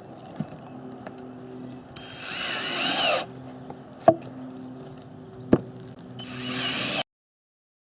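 Power drill running in two short bursts, about two seconds in and near the end, with a whine that rises and falls, over a steady low hum; two sharp clicks come between the bursts, and the sound cuts off abruptly near the end.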